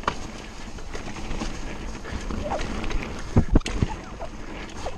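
Mountain bike descending a dirt trail at speed: tyres rolling over dirt and the bike rattling and clattering over bumps, with two hard knocks about three and a half seconds in.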